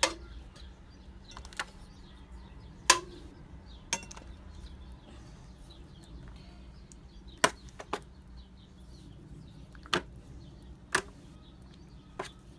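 A spoon knocking and scraping against a disposable aluminium foil pan while spreading tomato sauce over lasagna noodles: a series of sharp, short knocks every second or two, irregularly spaced.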